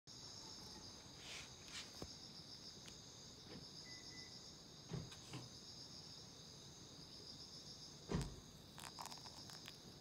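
Insects calling in a steady, high-pitched chorus, faint throughout. A few soft knocks break in, the loudest about eight seconds in.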